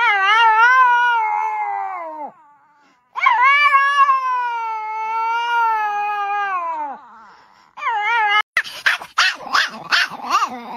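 A white Pomeranian howling: two long, wavering howls, the second the longer, each sliding down in pitch at the end, then a short one. Then a small white dog barks in a quick run of about half a dozen short, high yaps.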